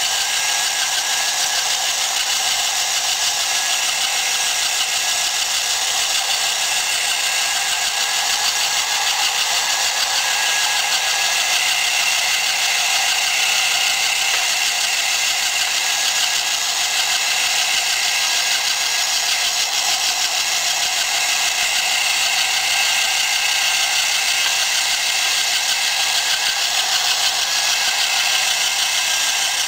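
Small electric motor and gear train of a model crawler tractor running steadily as the tracks turn, a continuous whir with the chipboard track plates clattering.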